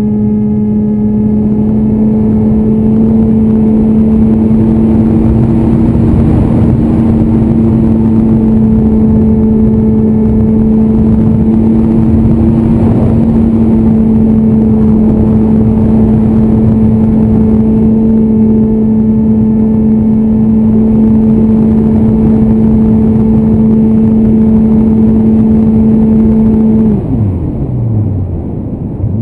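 Multiplex EasyStar RC plane's electric motor and pusher propeller running at a steady throttle, a loud constant drone with air rushing past, heard from on board the plane. Near the end the throttle is cut and the drone slides quickly down in pitch and fades.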